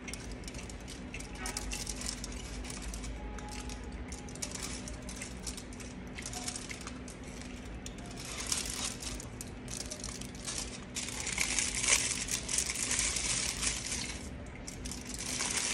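Aluminium foil wrapped around a crepe crinkling as it is handled and peeled back, in scattered rustles that grow loudest and most continuous in a long stretch near the end, over a faint steady hum.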